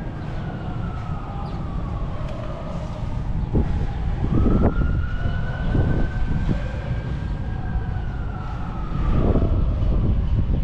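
An emergency vehicle's siren wailing, its pitch falling slowly, jumping back up about four seconds in and then falling slowly again. Under it a heavy low rumble with a few dull thumps.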